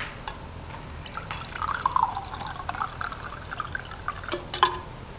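A drink poured from a pitcher into a glass mug, splashing steadily as it fills for about three seconds, with two sharp knocks near the end.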